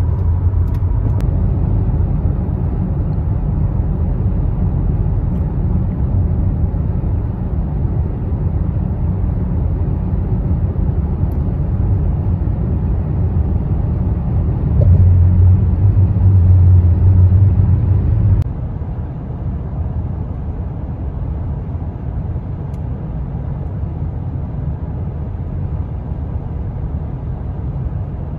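Steady low engine and road drone heard inside the cabin of a QM6 LPG SUV cruising at highway speed. It grows louder for a few seconds past the middle, then drops suddenly to a lower, even level.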